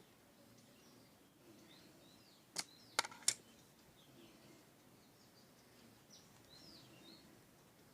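A quick run of sharp clicks, about two and a half to three and a half seconds in, as the plastic parts of a Jio Phone are handled during disassembly. Faint birds chirp in the background.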